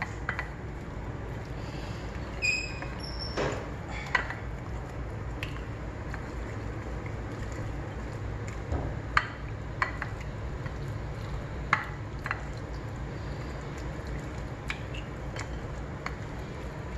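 Raw fish pieces being hand-mixed with turmeric and salt in a ceramic plate: soft wet rubbing with scattered taps and clinks of fish and fingers against the plate, including one short ringing clink about two and a half seconds in, over a steady low hum.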